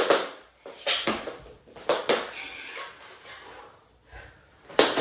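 Bauer mini hockey sticks clacking against the puck and the wooden floor in play: a few sharp hits about a second apart, a quieter stretch, then another sharp hit near the end.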